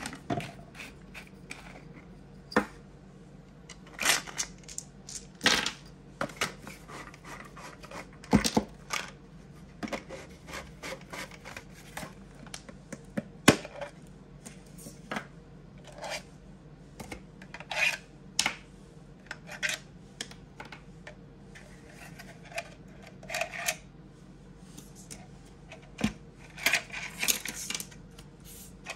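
Hard plastic parts of a hammer-shaped dice tower being handled, making irregular clicks, knocks and light rattles as the handle is twisted, the head's storage compartment is opened and pieces are set down on a wooden table. A handful of the knocks are much sharper and louder than the rest.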